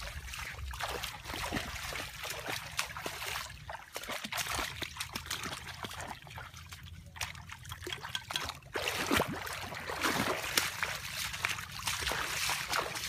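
Shallow muddy water sloshing, trickling and splashing as people wade and work through it, with many small irregular splashes.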